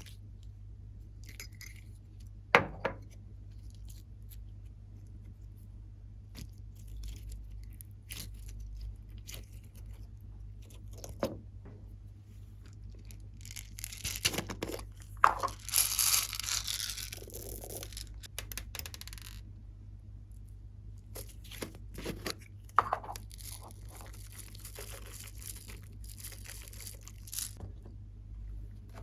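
Glossy slime being pressed, stretched and mixed by hand, giving scattered sticky clicks and pops, with a longer run of crackling about halfway through.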